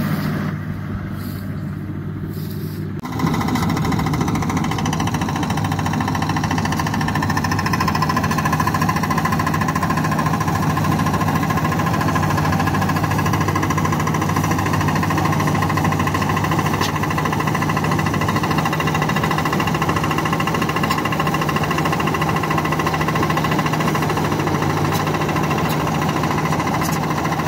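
Combine harvester running as it cuts paddy: a steady engine drone with the hum of its cutting and threshing machinery. It is fainter at first and much louder and closer from about three seconds in.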